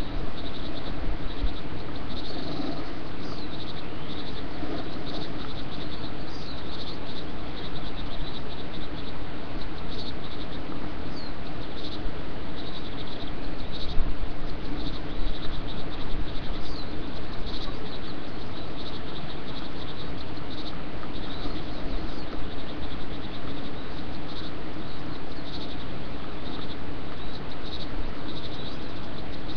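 Female great tit on her eggs, repeatedly hissing in the species' defensive display at the nest against an intruder, over a steady background hiss. The outbursts come every second or two, with a louder one about halfway through.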